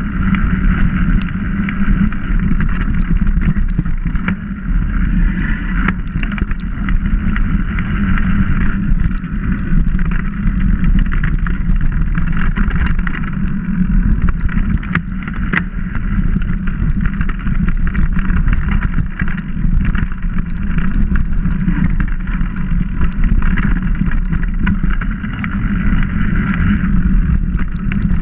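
Mountain bike riding down a dirt forest singletrack: a steady loud rumble of tyres and air rushing past, with frequent small clicks and rattles from the rough trail.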